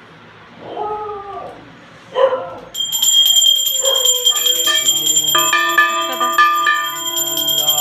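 A brass puja hand bell is rung steadily and fast from about three seconds in, with several held tones shifting in pitch beneath it. Before that come two short wavering whine-like calls.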